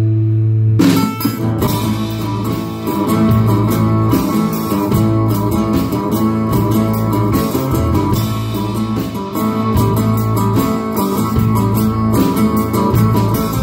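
Live band playing an instrumental passage on acoustic and electric guitars: a held chord, then about a second in the guitars break into a steady strummed rhythm over a low bass line.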